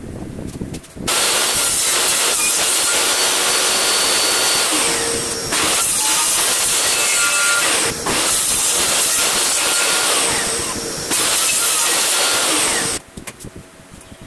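Table saw crosscutting a pine board on a sled: a loud, steady saw noise that starts abruptly about a second in and stops abruptly near the end, with a few sudden changes in level along the way.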